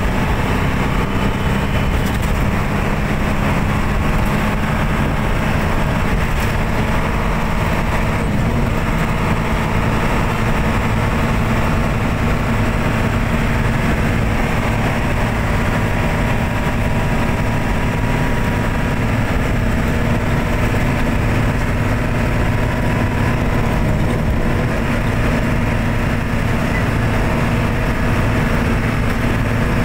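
Steady engine and tyre noise of a moving road vehicle, heard from inside its cabin, with a constant low engine hum.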